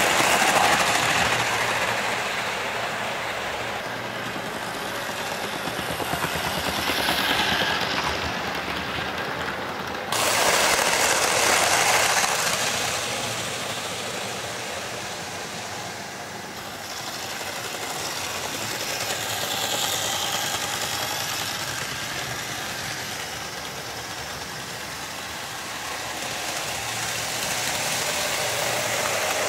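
OO gauge model trains running around the layout: small electric motors whirring and wheels rolling on the track, swelling and fading as the locos pass close to the camera and draw away. The level jumps up suddenly about ten seconds in.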